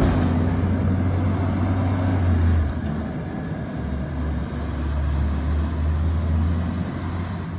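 Garbage truck's engine running with a deep, steady drone that eases off about two and a half seconds in.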